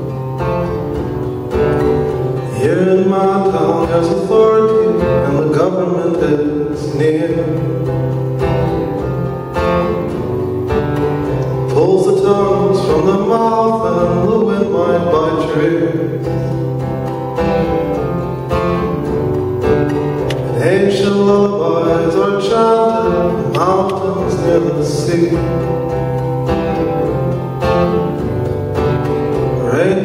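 A man singing a folk song to his own acoustic guitar, played live.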